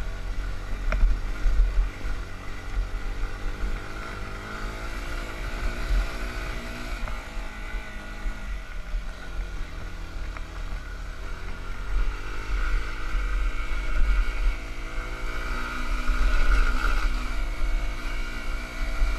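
Yamaha YBR 125's single-cylinder four-stroke engine running on the trail, its pitch dropping about halfway through and climbing again over the following seconds as the throttle changes, over a heavy low rumble.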